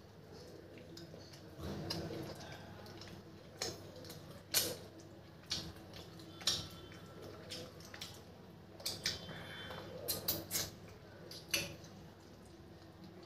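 Close-up mouth sounds of eating chicken by hand: wet lip smacks and clicks while chewing and sucking the fingers, about a dozen scattered through, with a quick run of them about two-thirds of the way in.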